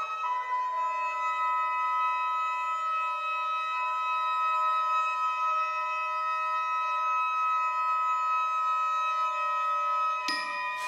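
Trumpet, saxophone and viola holding long, steady high notes together in a sustained contemporary-music chord. Near the end a sudden percussion stroke rings out over the held tones.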